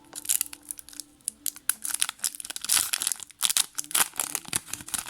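Foil booster pack wrapper of Yu-Gi-Oh trading cards being torn open and crinkled by hand: an irregular run of sharp crackles.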